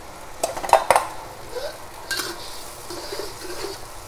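Metal spatula stirring eggplant pieces in a metal wok, clinking sharply against the pan a few times about half a second to one second in and again after two seconds, over a soft sizzle of the eggplant cooking.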